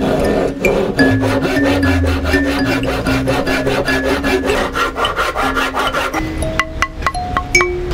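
Japanese-style pull saw cutting across an old oak board by hand, in quick, even rasping strokes.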